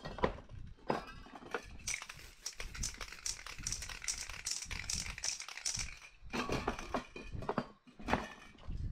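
Aerosol spray paint can hissing in a run of short bursts, with clicks and knocks of cans being handled.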